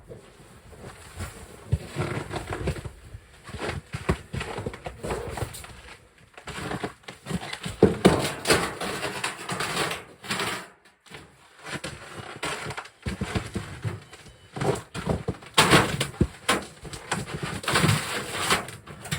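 Irregular rustling, crunching and knocking as camp gear is handled and set up.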